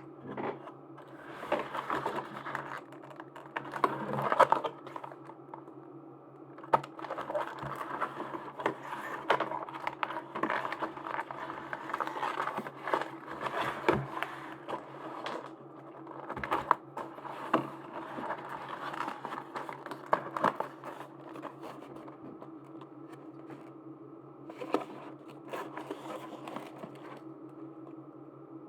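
Hands handling and opening plastic merchandise packaging: irregular crinkling, scratching and small clicks, over a steady low hum.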